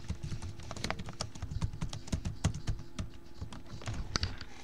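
Typing on a laptop keyboard: a run of irregular key clicks over a faint steady hum.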